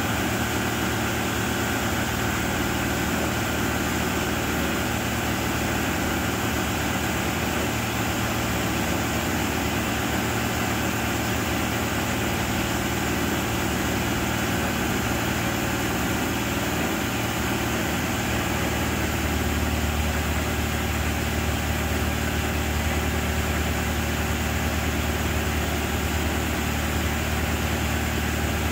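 Genie S-85 telescopic boom lift's engine running steadily at idle; about two-thirds of the way through, its low hum grows stronger.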